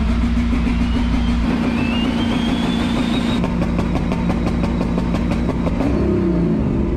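Turbocharged LS V8 in a C4 Corvette idling steadily, with a high whine rising in pitch over the first three seconds. The engine then briefly picks up speed about six seconds in before settling back.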